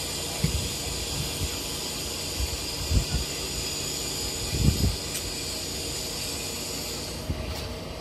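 Caterpillar 303 mini excavator running under load as it hoists a heavy stone on a sling, with a steady hiss that picks up as the lift begins and eases near the end. A few dull low thumps come through.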